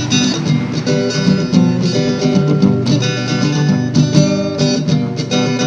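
Acoustic guitar strummed in a steady rhythm: the instrumental introduction to a love song, before the vocals come in.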